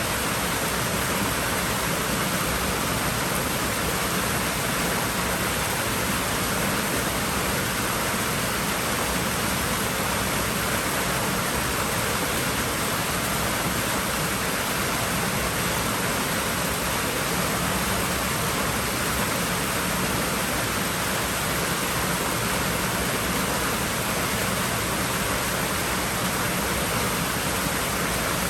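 Swimming-pool water rushing steadily: an even hiss with no breaks or changes.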